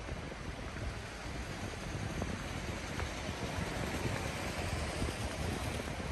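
Steady city street traffic noise: a low engine rumble and the hiss of passing vehicles.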